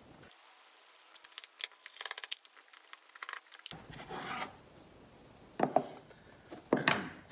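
Screwdriver backing out the bolts that hold the plastic top cover on a Poulan Woodshark chainsaw: a quick run of light clicking. It is followed by a scrape and two short knocks as the cover comes off and is set down on the bench.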